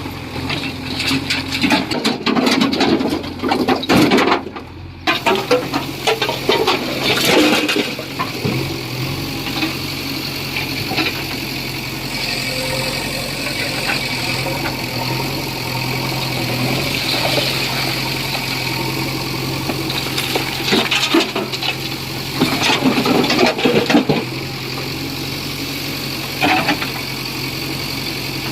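Heavy diesel machinery running steadily, a JCB 3DX backhoe loader at work with a tractor. Bursts of louder clatter and rumble come over the first several seconds and again about two-thirds of the way through.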